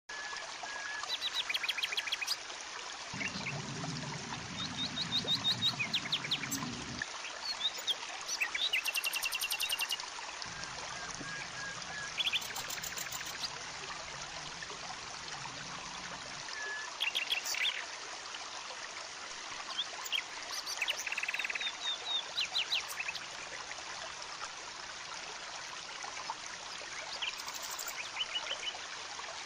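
Small stream trickling and splashing over rocks in a low cascade, a steady rush of water. Short rapid bird chirps and trills sound over it every few seconds.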